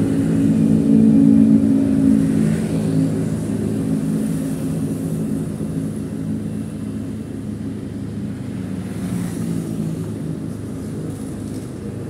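A vehicle engine running with a steady, even hum, loudest about one to two seconds in and then slowly fading.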